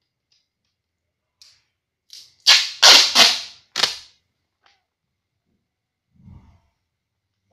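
Packing tape pulled off the roll in about four quick, loud rips in the middle, after a few faint clicks and rustles, as a label is taped onto a parcel.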